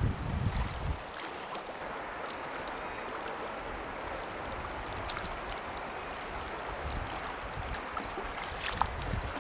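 River water running steadily, with a few short ticks. Wind buffets the microphone for the first second.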